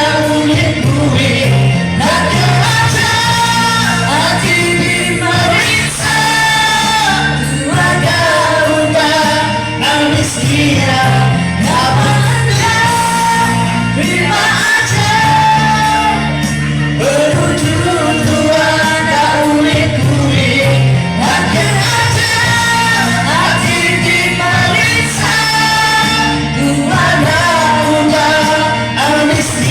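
A pop song with a singer's voice carried over band music and a steady, repeating bass line.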